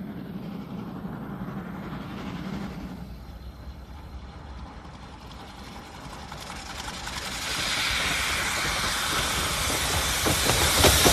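Norfolk & Western No. 475, a 4-8-0 steam locomotive, approaching and getting steadily louder, a low rumble giving way to loud steam hiss from about two-thirds of the way in. A few sharp clicks come near the end.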